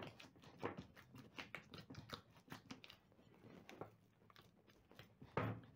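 Faint, irregular squelching and slapping of sticky yeast dough being kneaded by hand in a glass bowl while margarine is worked into it, with one louder squish near the end.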